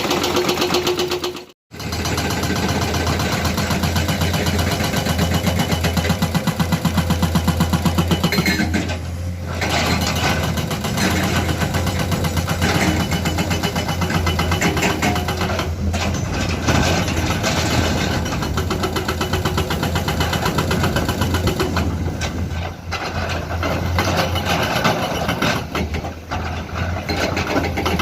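Heavy diesel engines of excavators and a dump truck running steadily on a dig site. The sound cuts out for a moment about a second and a half in.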